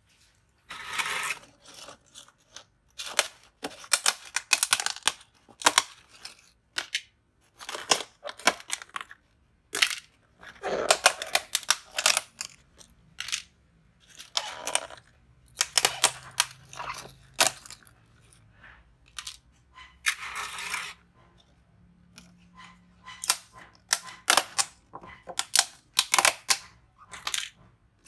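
Thin clear plastic food-container lids being pried off and handled, giving irregular sharp crackles and snaps of flexing plastic.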